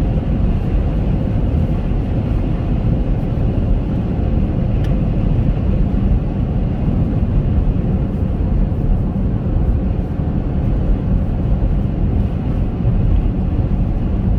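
Steady low rumble of road and engine noise heard inside the cabin of a Chevrolet Captiva SUV driving along.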